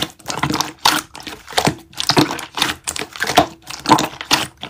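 Clear blue glitter slime being squeezed and pressed by hand, giving a quick, uneven run of sticky clicks and pops.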